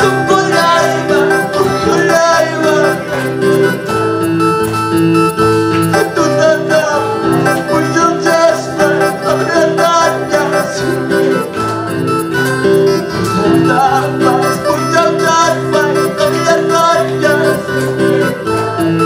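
A man singing a Quechua praise song into a microphone, accompanied by his own electronic keyboard playing steady held chords, through an amplified sound system.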